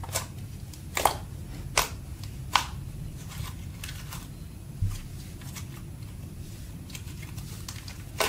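Thick slime being squeezed and kneaded by hand, giving sharp wet pops and clicks as it is pressed and folded. The loudest pops come about once a second in the first three seconds, with one more near the middle and softer crackles after.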